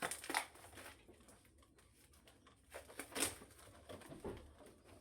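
Packaging being handled and opened: scattered rustling with a few sharp clicks, the loudest about half a second in and just after three seconds.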